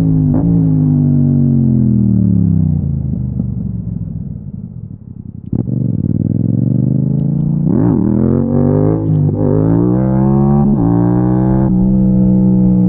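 Yamaha MT-07 parallel-twin engine under way: the revs fall off the throttle for the first few seconds and the engine goes quieter, then after a sharp click about five and a half seconds in it pulls again, revs climbing with several quick breaks at gear changes before settling to a steady note near the end.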